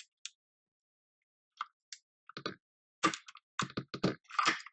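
Plastic clicks and scrapes of a keycap puller working at a mechanical keyboard's spacebar keycap. There are a few isolated clicks at first, then after a short pause a quickening run of clicks and rattles in the second half.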